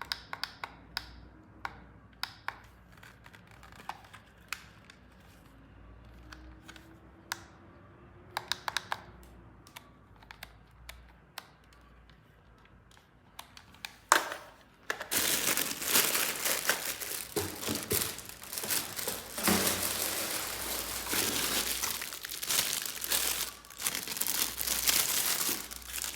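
Light clicks and taps of small plastic parts being handled, then, about halfway through, loud steady crinkling and rustling of plastic packaging being unwrapped.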